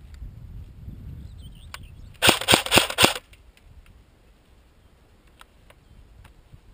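CYMA CM.028 AK47 airsoft electric gun (AEG) firing a short full-auto burst of about six shots in under a second, a couple of seconds in.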